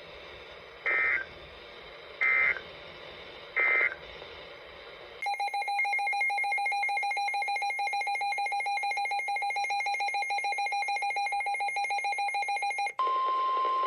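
Three short EAS/SAME digital data bursts about a second apart: the end-of-message code after a weather warning. About five seconds in, an electronic alert tone starts and trills rapidly for about eight seconds. Near the end it gives way to a steady single-pitch tone, the NOAA Weather Radio warning alarm tone.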